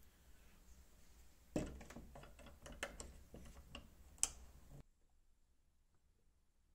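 Faint run of small clicks and taps from small parts and containers being handled on a workbench, with one sharper click near the end, then the sound cuts off abruptly to near silence.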